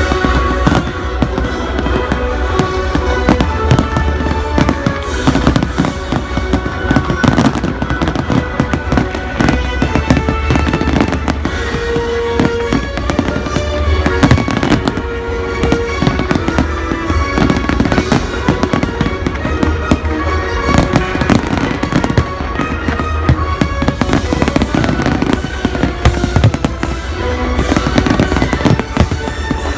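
Fireworks display: a near-continuous barrage of bangs and crackles, played against a loud music soundtrack.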